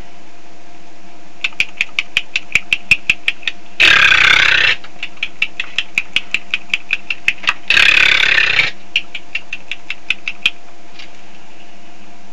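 Mouth noises made with the mouth: rapid sharp clicks, about six a second, twice broken by a harsh noisy blast lasting about a second.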